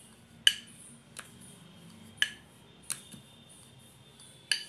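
A wooden rolling pin clacking against a stone rolling board while dough is rolled out: five sharp clacks with a short ring, three of them loud.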